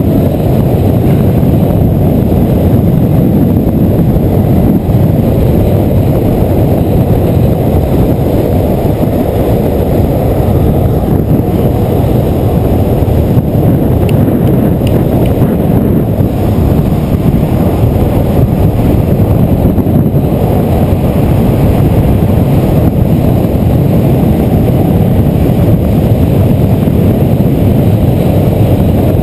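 Loud, steady wind buffeting the microphone of a camera moving fast downhill, with skateboard wheels rolling on asphalt underneath.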